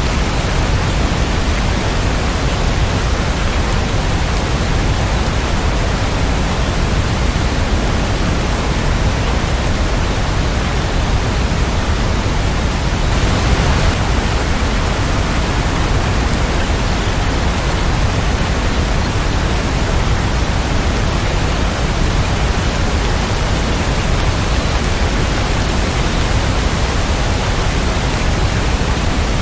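Steady heavy rain: a continuous, even hiss of falling rain with a strong low rumble beneath it, swelling slightly for a moment about 13 seconds in.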